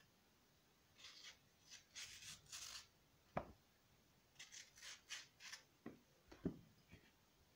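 Kitchen knife slicing a peeled mango into strips: faint, quick scraping cuts through the flesh in two runs, with a few sharp knocks on the wooden cutting board around the middle and near the end.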